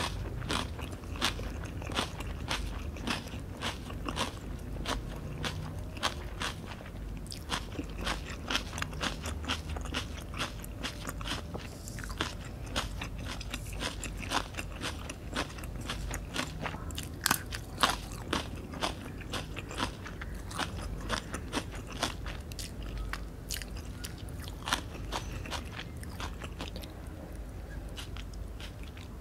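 Close-miked chewing and biting of fresh Vietnamese spring rolls, rice paper wrapped around crisp lettuce and fillings, with many sharp, irregular crunches.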